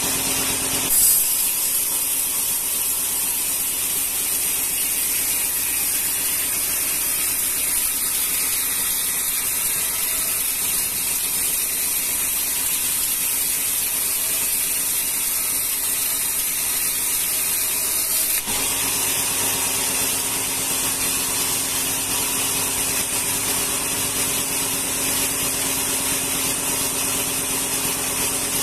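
Log band saw at a sawmill running and sawing a rengas hardwood log into boards, a steady loud hiss of the blade through the wood. The sound changes about a second in and again about eighteen seconds in, as a lower hum from the machine drops back and then returns.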